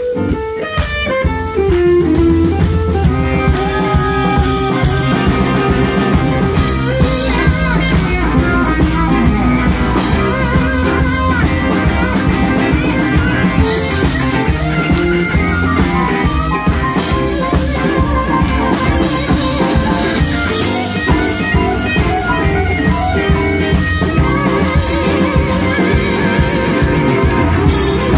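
Live electric blues band playing an instrumental passage: electric guitars taking lead lines over a drum kit and bass.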